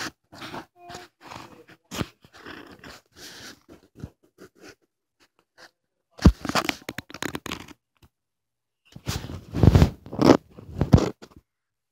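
Phone microphone handled and rubbed by a small child's fingers: irregular crunching scrapes and knocks, with two louder, rumbling stretches past the middle.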